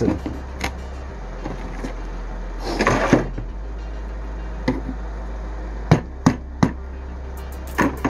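Hand tools being picked up and set down: a handful of separate sharp knocks and clicks, with a short rustling scrape about three seconds in, over a steady low hum.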